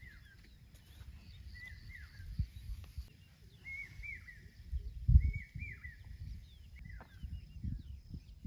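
A bird calling over and over in short chirping notes that rise and fall, every second or two, over an irregular low rumbling noise with a low thump about five seconds in.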